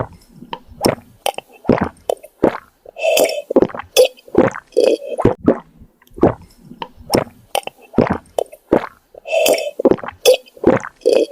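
A quick run of short wet squelches and plops, several a second, typical of wet concrete being worked by hand.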